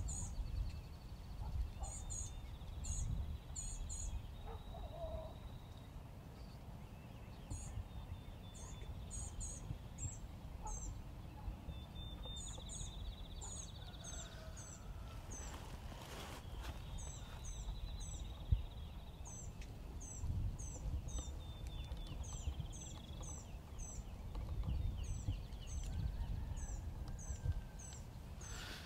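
Songbirds chirping over and over in quick short high notes, with buzzy trills in between, over a low background rumble.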